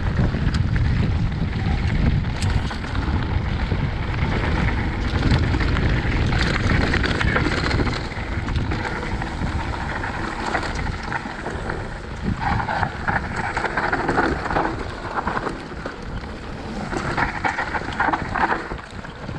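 Wind buffeting the microphone of a mountain bike's handlebar camera while riding fast down a dirt forest trail, with tyre and bike noise over the ground; the rumble is heaviest in the first half and eases after about eight seconds.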